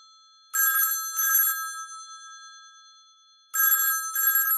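500 series telephone's twin-gong bell ringer ringing in two double rings: two short bursts, a pause of about two seconds, then two more, each burst leaving the gongs ringing on and fading. The ringer has been freshly adjusted and rings cleanly, a nice ring.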